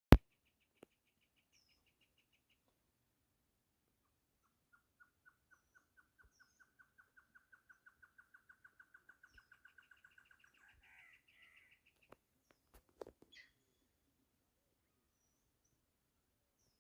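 Great antshrike singing: a long series of hooting notes that speeds up, grows louder and rises slightly, ending in a rough snarl. A quicker, higher series of notes comes at the start and again over its end. A sharp click at the very start and a few knocks near the end.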